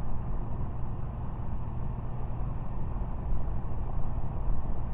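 Steady drone of a Cessna 185's six-cylinder piston engine and propeller in cruise flight, heard from the cabin.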